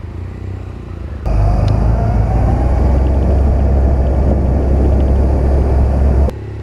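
Motorcycles running as they pull away slowly. About a second in the sound cuts abruptly to a much louder low rumble of a moving motorcycle with heavy wind buffeting on the microphone, which cuts off just as suddenly near the end.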